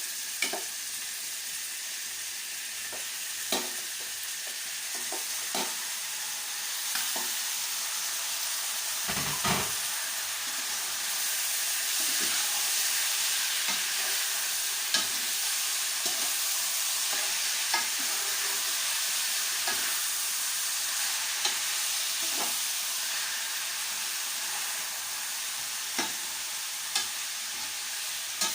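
Chicken pieces frying in olive oil with onion and garlic, a steady sizzle that grows louder about a third of the way in, with a utensil stirring and clicking against the pot now and then and one dull thump near the middle.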